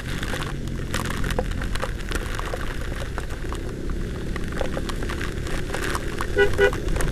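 Heavy rain heard from a moving scooter: raindrops ticking on the helmet camera over a steady low rumble of wind and road noise. A short horn beep sounds about six seconds in.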